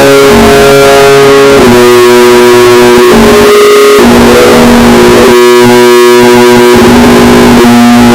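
Emergency alert alarm tone: loud, distorted electronic notes sounded together as held chords, the pitch stepping to a new chord every second or so.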